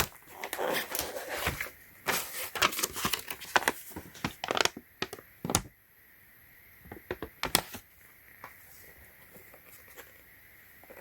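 Packaging of a charging adapter being torn and opened by hand: crisp crinkling and tearing with sharp rustles and clicks for the first five or six seconds, a few more rustles about seven seconds in, then only faint handling.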